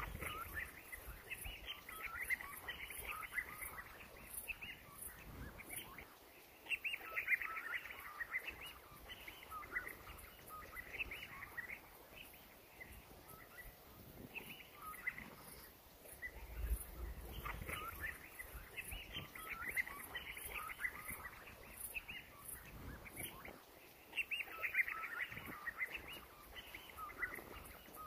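African wild dog pack twittering, high bird-like chirps coming in bursts of a few seconds at a time as the dogs become active.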